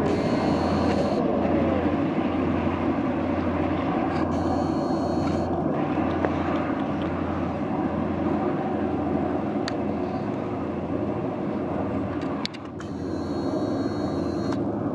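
Diesel train running: a steady low engine drone with an even, slow pulsing throb.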